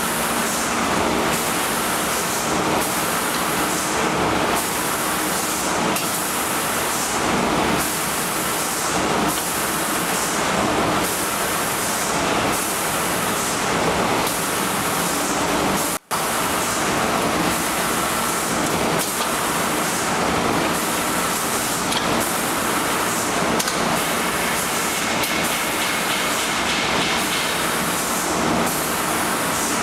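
Automatic wood-door painting line running: a steady, loud machinery noise with a constant hiss of air, briefly cutting out about sixteen seconds in.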